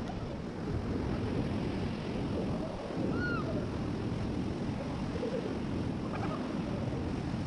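Rushing river water around a raft in rapids, with wind noise on the microphone.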